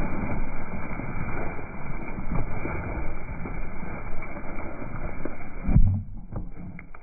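Zwartbles sheep feeding right against a microphone at ground level: close rustling, tearing and chewing of grass, with hooves treading the turf. A heavier thump comes near the end, after which it is quieter.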